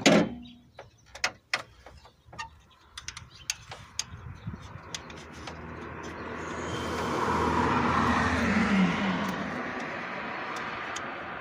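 A few light clicks and taps of hands and tools against engine parts, then a passing vehicle that swells up, is loudest a little past the middle with its tone dropping, and slowly fades.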